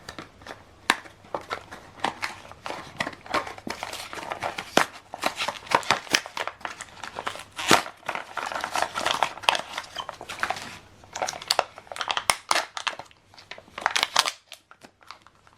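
Packaging of a new ink cartridge crinkling, crackling and tearing as it is unwrapped by hand: a dense, irregular run of rustles and small clicks, with a short lull near the end.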